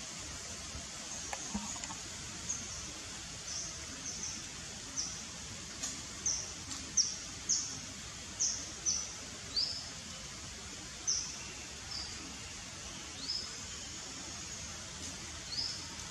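A bird chirping: short high notes, each falling in pitch, about fifteen of them at irregular intervals, over a steady background hiss.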